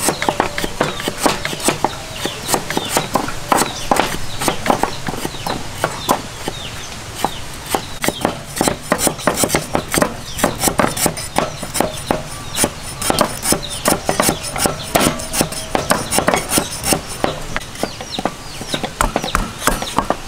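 Cleavers chopping lemongrass on a thick wooden chopping block: a fast, uneven run of sharp knocks, with more than one cleaver going at once.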